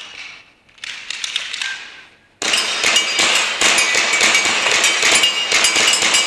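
Gas-blowback airsoft pistols firing in rapid, irregular strings, mixed with BBs striking the targets. The firing starts abruptly about two and a half seconds in, after a faint stretch.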